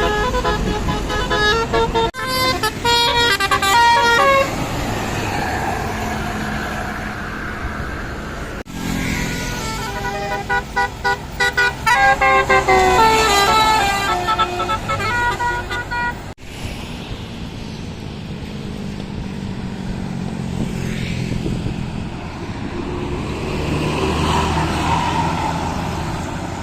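Tour buses' Basuri multi-note 'telolet' air horns playing quick melodic runs of stepped notes, twice in the first half, over the hum of the bus engines. Toward the end only bus engines and passing-traffic noise remain.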